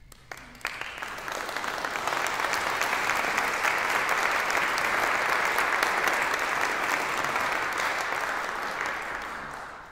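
Audience applause after a choral performance. It begins with a few scattered claps, swells to full applause within about two seconds, holds, and then dies away near the end.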